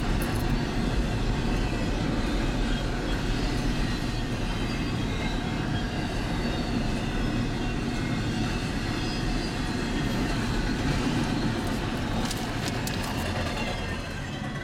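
CSX double-stack intermodal freight train's container well cars rolling past: a steady rumble of steel wheels on rail, with a few sharp clicks about twelve seconds in. It eases off near the end as the tail of the train goes by.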